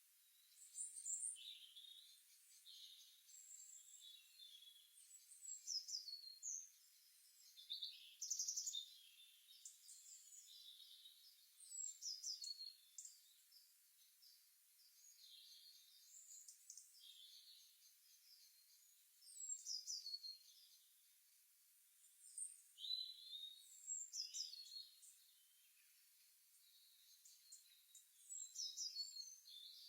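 Songbirds chirping and singing: short, high-pitched phrases, many falling in pitch, come in bursts every few seconds over a faint steady hiss.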